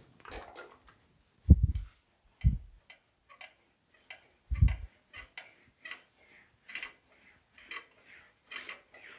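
Sheet-metal fender panel being worked back and forth through an English wheel, giving scattered light ticks and clicks. Three dull thumps stand out, the loudest about a second and a half in.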